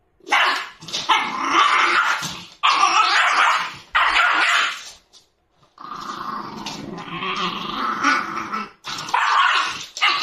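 Shiba Inu puppy growling and barking in a string of loud bursts, the longest about three seconds, while it guards its food bowl from a stick: food guarding (resource guarding) aggression.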